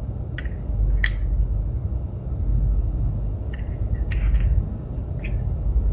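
A few light plastic clicks and rubs as jumper wires are handled and pushed into an Arduino Uno's pin header and a breadboard, the sharpest about a second in. A steady low hum runs underneath.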